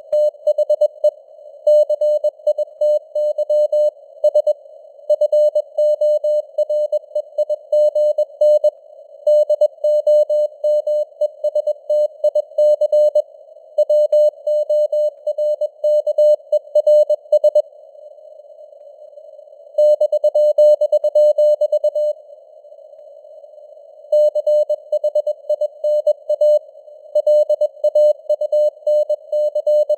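Morse code at 21 words per minute: a single medium-pitched tone keyed in quick dots and dashes over a narrow band of simulated radio hiss, like a CW receiver's filtered noise. The keying pauses twice near the middle, for about two seconds each, with only the hiss between.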